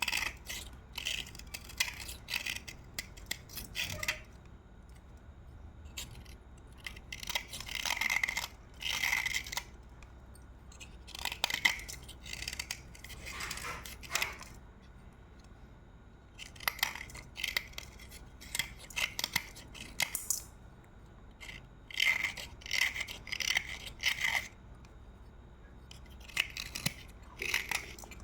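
Slate pencil being bitten and chewed close to the microphone: clusters of sharp, crisp crunching every few seconds, with short pauses between.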